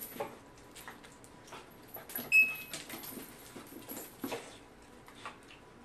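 A Clicker+ electronic training clicker sounds once about two seconds in, a click with a short high beep: the marker signal telling the corgi she did the right thing and a treat is coming. Around it come faint scuffs of the dog moving on carpet.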